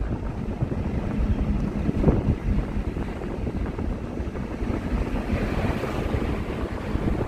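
Road and wind noise from a car driving along a highway: a steady low rumble with wind buffeting the microphone.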